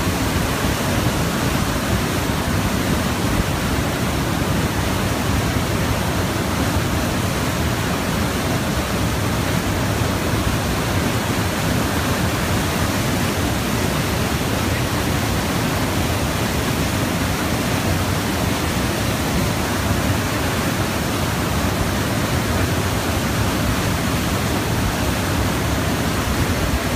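Steady loud rush of water driving a small hydro turbine, an even noise with no change in it.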